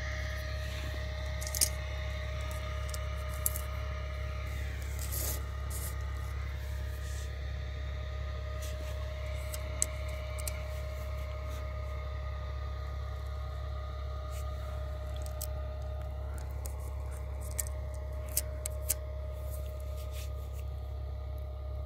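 A steady low hum with a faint constant tone over it, broken by a few short, sharp clicks and light scrapes scattered through.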